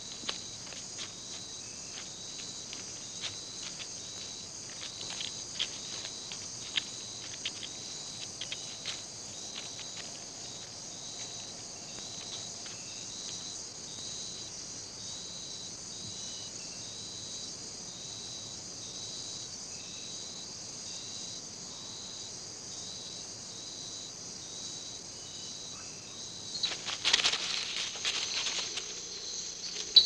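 Night insect chorus of the tropical rainforest, a steady high-pitched trilling, with scattered clicks in the first ten seconds. About 27 seconds in, a sudden loud scuffle and rustle as a tarantula seizes a katydid.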